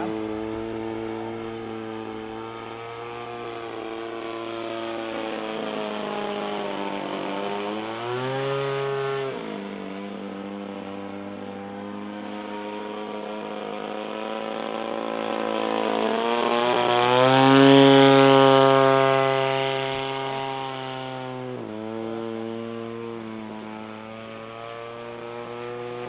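RCGF 20cc two-stroke petrol engine of a Seagull Decathlon 120 model plane in flight, a steady buzz that rises and falls in pitch twice with the throttle. It is loudest about two-thirds of the way through, then drops back to a lower, steady tone.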